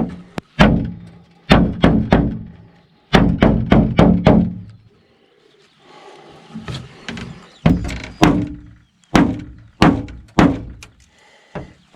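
A Buck 285 Bantam folding knife stabbed again and again into a car door: about twenty sharp thunks from the door's sheet metal, in quick bursts of two to five, each with a short low ring. The blade is not penetrating the door.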